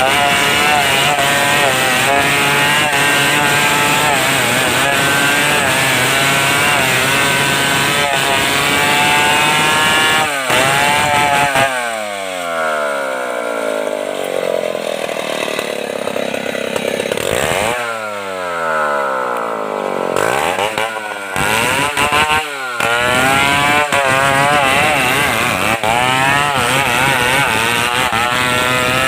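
Stihl 070 two-stroke chainsaw cutting wood at high revs, its pitch wavering under load. About halfway through the throttle eases and the engine note falls, then it revs back up, drops once more, and goes back to full-throttle cutting.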